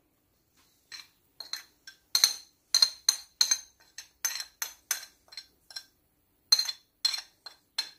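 A metal teaspoon tapping and clinking against small ceramic dishes in a run of sharp, ringing taps, about three a second, with a short pause about six seconds in. The spoon is scraping chopped parsley off a plate into a small bowl and stirring it into butter.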